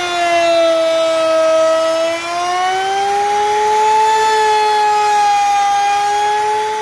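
High-speed woodworking power tool cutting a profile into a wooden panel: a steady high motor whine over a cutting hiss, its pitch sagging a little and then rising again.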